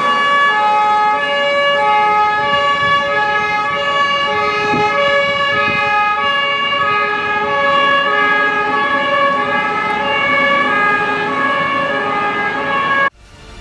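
A fire engine's two-tone siren, alternating steadily between a lower and a higher pitch. It is loud and cuts off suddenly near the end.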